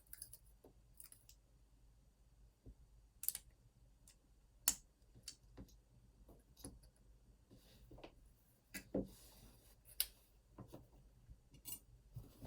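Small metallic clicks and taps of tools working at an Opnus TEX lock cylinder to get its C-clip off: a dozen or so separate sharp clicks at irregular intervals, the loudest about five and ten seconds in.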